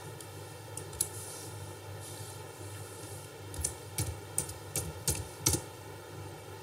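Typing on a computer keyboard: a single click about a second in, then a quick run of about eight keystrokes in the second half, over a steady low hiss.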